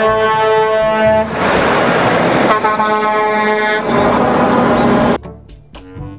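Semi-truck air horn blasting twice, each blast about a second long, over the loud rumble of a passing Mack tractor-trailer. The noise cuts off suddenly about five seconds in.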